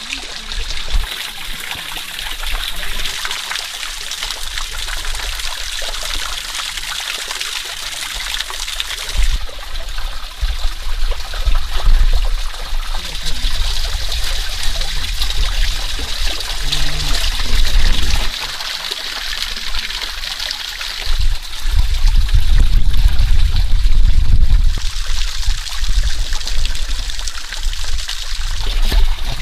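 Water running and trickling steadily, its hiss stepping louder and quieter a few times, with low rumbling in stretches.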